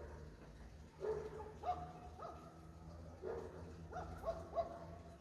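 Dogs barking at night, echoing: about half a dozen sharp barks come in twos and threes over a steady low hum.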